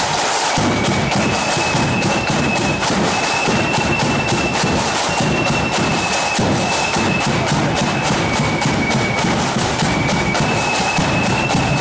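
Marching flute band playing: massed flutes carry a high unison melody that comes in about a second in, over snare drums rattling out a steady march beat and a bass drum.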